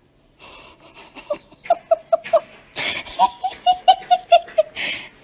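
A person laughing hard: two runs of quick, high-pitched 'ha' pulses, each run ending in a loud breathy intake of breath.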